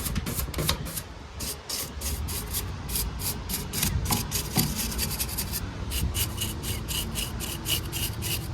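Coil brush scrubbing a dirty HVAC coil, rubbing across the fins in quick repeated strokes, about three a second, to clear out built-up dirt.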